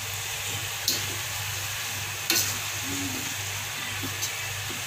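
Chopped cassava leaves sizzling in a steel wok while a metal ladle stirs them. Three sharp knocks of the ladle against the pan come about a second in, just past two seconds (the loudest) and near the end, over a low steady hum.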